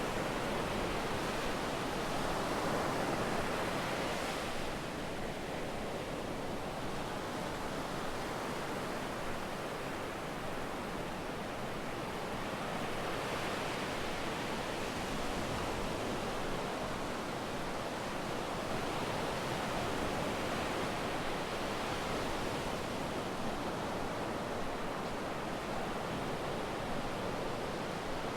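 Sea waves breaking and washing up a beach: a steady rush of surf that swells now and then.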